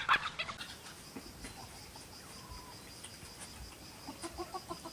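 Insects chirping steadily in the background, and near the end a quick run of short clucks from a rooster.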